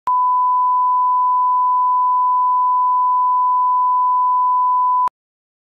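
Bars-and-tone test signal: a steady 1 kHz line-up tone held about five seconds, with a click as it starts and as it cuts off.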